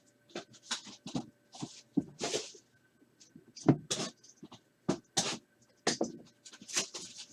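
Plastic wrapping on trading-card packaging crinkling and tearing as it is opened: a string of irregular, sharp crackles, some close together and some a second or so apart.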